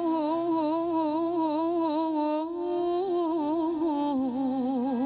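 A woman singing a long, held wordless melisma in an Algerian istikhbar in the Aarak mode, her voice wavering in fine ornaments around one note and stepping down lower about four seconds in.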